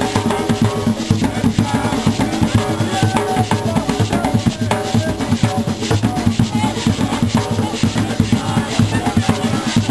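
A group of djembe hand drums playing together in a fast, steady, dense rhythm of hand strikes.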